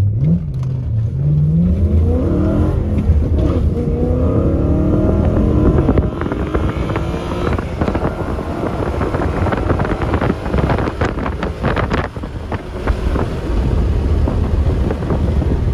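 Stage 2 BMW E90 M3's V8 accelerating hard, heard from inside the cabin: the revs climb, drop back and climb again over the first six seconds. A run of rapid sharp cracks follows in the middle, then steadier engine noise.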